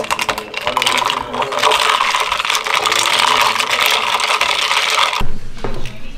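Ice cubes rattling and clinking against a glass mason jar as iced coffee is stirred quickly with a straw; the rapid clinking stops suddenly about five seconds in.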